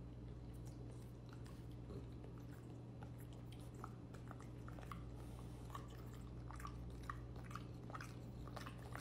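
French bulldog chewing a piece of food, faint wet smacking and clicking that gets busier in the second half, over a steady low hum.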